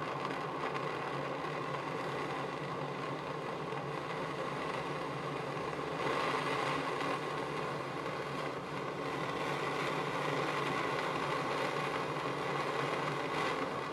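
Jeweller's blowpipe gas torch flame, blown by mouth, running as a steady rushing hiss as it heats a solder joint. It starts abruptly, swells a little about six seconds in and tails off near the end.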